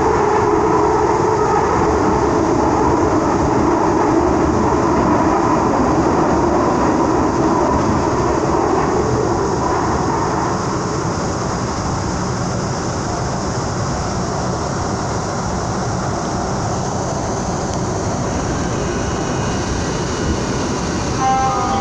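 Salvador Metro electric train heard from inside the passenger car, running with a steady rumble of wheels on rail and motor noise. From about halfway it grows a little quieter as the train slows into a station, and a few steady tones come in near the end.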